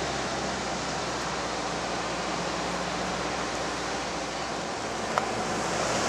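Holden Rodeo 4WD driving along beach sand, heard from inside the cab as a steady rushing noise of tyres and wind, with one sharp click about five seconds in.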